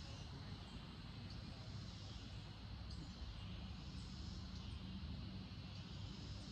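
Faint outdoor ambience: scattered bird chirps over a low, steady rumble.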